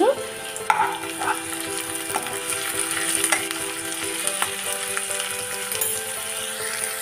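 Sliced onions and ginger-garlic paste sizzling in hot oil in a wok, with a few sharp clicks of a steel ladle against the pan.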